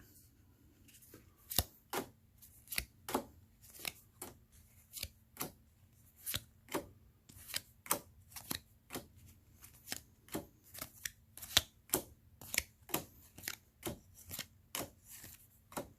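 Board-game cards being flipped through one at a time, each card giving a short sharp tap or snap, about two or three a second, starting about a second and a half in.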